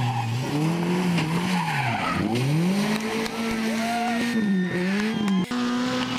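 Rally car engines at high revs, their pitch swinging up and down with throttle lifts and gear changes as a Peugeot 206 rally car slides on loose gravel. About five and a half seconds in, a sharp click, and then a Mitsubishi Lancer Evolution's engine runs on at high, steady revs.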